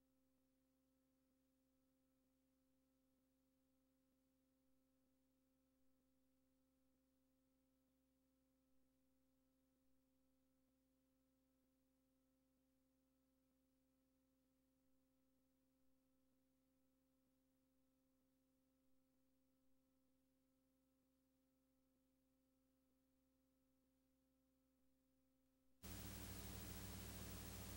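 Near silence: a faint steady electrical hum. About two seconds before the end, a louder tape hiss and hum switch on abruptly.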